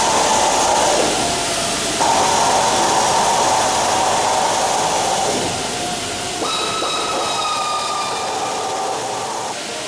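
Steady whirring of workshop machinery that shifts in level a few times, with a motor whine joining about six and a half seconds in.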